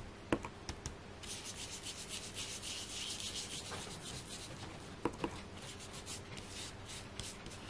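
Foam ink dauber rubbed and dabbed over embossed cardstock in quick repeated strokes, a dense run through the middle that thins out toward the end, with a couple of light taps.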